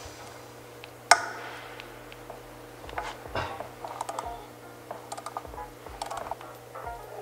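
Scattered metallic clicks and taps of hand work on a motorcycle's generator stator and engine-side cover, with one sharp clank about a second in.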